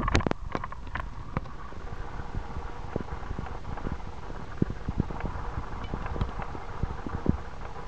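Horse's hoofbeats as irregular knocks, over a steady low rumble of wind on the microphone.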